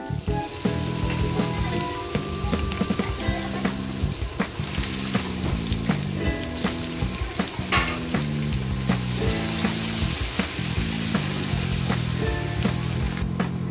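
Minced garlic frying in hot oil with whole spices, a steady sizzle with small pops and clicks. The sizzle gets louder about four seconds in as the garlic goes into the oil, and a wooden spoon stirs it. Background music plays underneath.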